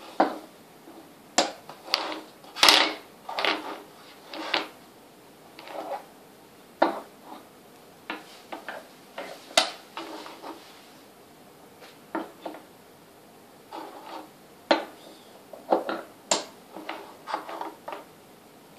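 Painted wooden shape blocks clacking against each other, the wooden peg board and the tabletop as a toddler picks them up and sets them down. The knocks come irregularly, one or a few at a time with short pauses between.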